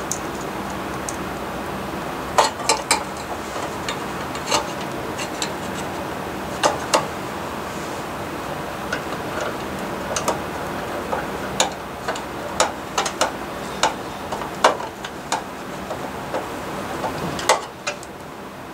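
Irregular sharp metallic clicks and taps of a screwdriver and small mounting screws against the sheet-metal housing of a baseboard heater and its thermostat bracket as the thermostat is screwed in. There are more than a dozen clicks, bunched from about two seconds in, over a steady low hiss.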